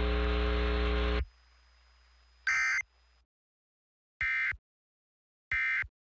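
A steady buzzing drone from the end of an Emergency Alert System test cuts off about a second in. It is followed by three short, shrill digital data bursts, the EAS (SAME) end-of-message tones, spaced a little over a second apart.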